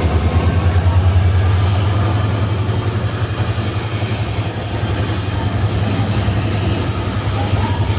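WDG4D diesel locomotive's engine running with a deep, steady hum that pulses rapidly and evenly, easing off slightly after the first couple of seconds.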